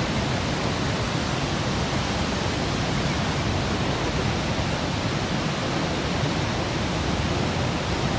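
Loud, steady rush of water from Niagara Falls pouring over the crest, an even unbroken noise with no changes.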